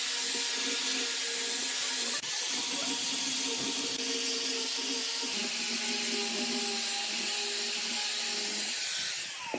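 Angle grinder fitted with a cylindrical sanding drum, running steadily as it sands the curved edge of a wooden board: a high motor whine over a sanding hiss. The pitch drops slightly about halfway through, and the sound fades out near the end.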